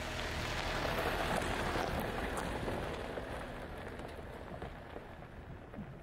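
Mitsubishi L200 pickup driving past on a loose gravel track, its tyres crunching over the stones. Loudest about a second in, then fading as it moves away.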